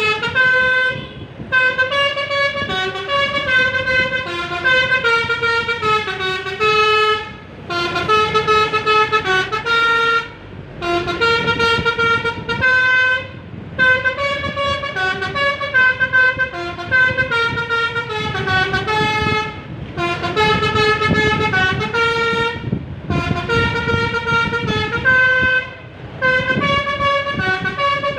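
A bus's 'telolet basuri' multi-note musical horn playing melodies, phrase after phrase of stepped tones separated by short breaks, over a low engine rumble.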